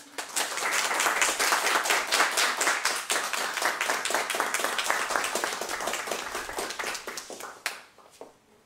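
Small audience applauding, dying away about seven and a half seconds in.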